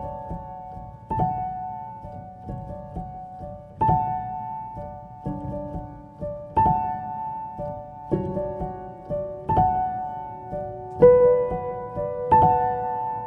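Slow, calm piano music: soft chords struck every second or two and left to ring away.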